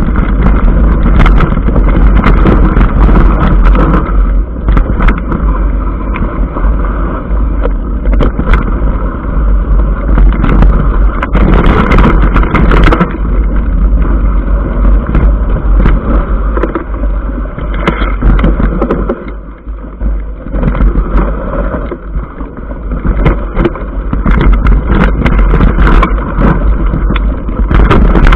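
Wind buffeting the microphone of a camera riding on a mountain bike over a stony dirt track, with the rattle and sharp knocks of the bike and mount jolting over the rough surface. The noise eases for a few seconds about two-thirds through.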